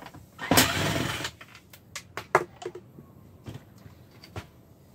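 Cordless drill running briefly, for under a second, backing a screw out of the plastic ceiling shroud of an RV air conditioner. This is followed by several light clicks and knocks of the plastic shroud being handled.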